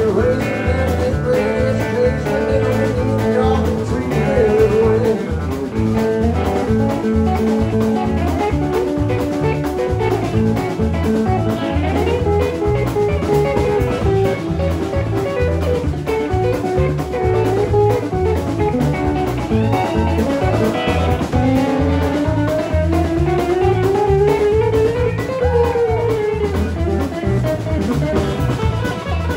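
Live band playing an instrumental break: an electric guitar takes the lead over electric bass and a drum kit keeping a steady beat. In the second half the lead line slides up in pitch over several seconds, then drops back.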